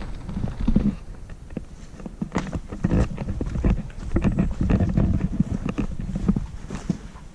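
Footsteps: an irregular run of knocks and scrapes over a low rumble.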